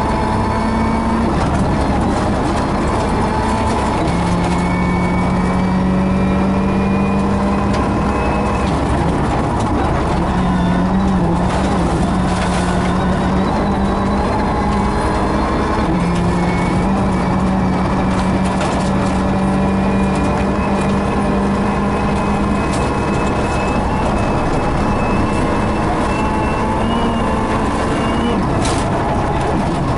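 Loud, steady engine noise with a faint high whine, holding one pitch for several seconds at a time and stepping slightly up or down between stretches.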